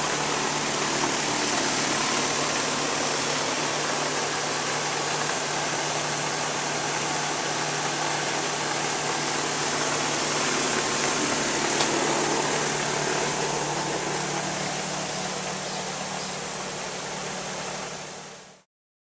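Rheem RAMB-048 air-conditioning condensing unit running steadily: the condenser fan's air rush over a low, even compressor hum. It is running normally again on a new run capacitor, showing the compressor was not bad; the failed capacitor was the fault.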